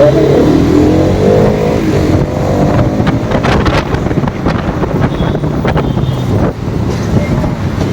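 Motorcycle engine running while riding, its pitch rising over the first couple of seconds as it accelerates, with wind buffeting and rushing on the rider's microphone through the rest.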